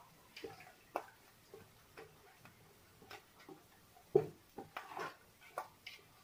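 A hand mixing grated onion and oil in a metal cooking pot: irregular light clicks and wet taps, a few a second, as fingers and knuckles knock against the pot.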